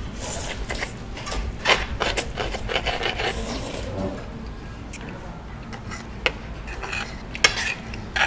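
Cutlery clinking and scraping against dishes during a meal, with several sharp clinks, the loudest about a second and a half in and twice near the end.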